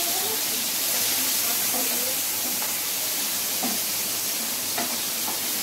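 Prawns sizzling steadily as they fry in hot oil in a frying pan, stirred with a wooden spatula that knocks lightly against the pan a couple of times in the second half.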